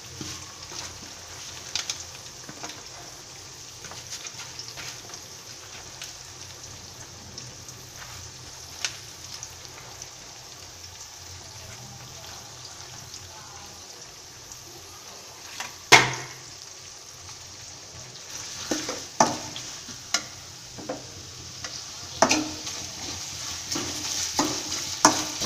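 Sliced onions sizzling steadily as they fry in hot oil in a pan. About two-thirds of the way through there is a sharp knock, and from then on a utensil stirring and clattering against the pan.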